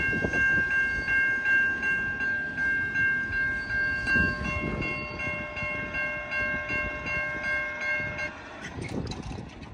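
Freight train cars rolling past, wheels clacking rhythmically over rail joints. Over them a level-crossing bell rings steadily and cuts off about eight seconds in.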